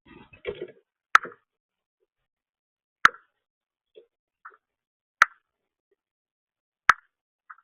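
Sharp taps of birds pecking at a seed feeder, four of them about two seconds apart, with a brief rustle at the start and a few faint softer ticks in between.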